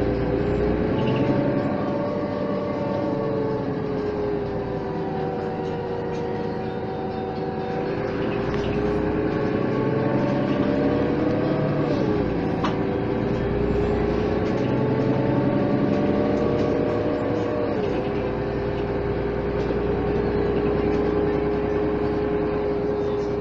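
Inside a Mercedes-Benz O 530 Citaro city bus: the OM 906 hLA inline-six turbodiesel running under way with road and tyre noise. The engine note rises and falls with speed, dropping sharply about halfway through and again about three quarters through, then holding steady.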